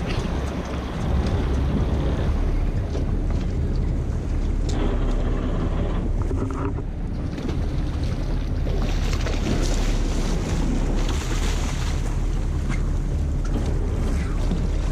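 Wind rumbling on the microphone over water slapping against a boat hull. A hooked tarpon splashes and thrashes at the surface beside the boat, loudest in the second half.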